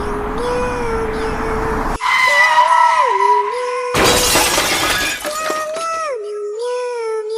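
A soft, synthetic-sounding sung melody over background music, with a sudden loud crash about four seconds in that lasts under a second.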